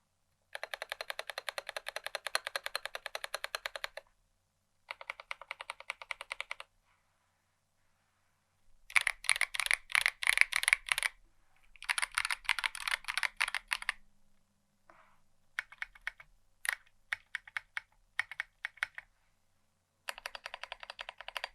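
Hand-built mechanical keyboard with lubed switches and stabilizers, built for a deep 'thock', being typed on. Fast, even runs of keystrokes come in bursts, a louder run with bigger strokes falls about a third of the way in, and a stretch of slower single presses comes near the end, followed by a final quick run.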